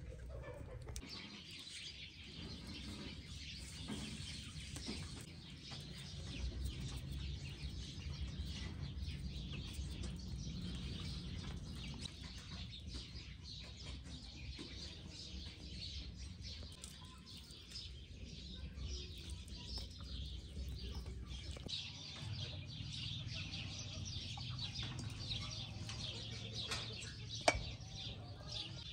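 Wood fire crackling under the hearth with birds calling in the background; a sharp knock sounds near the end.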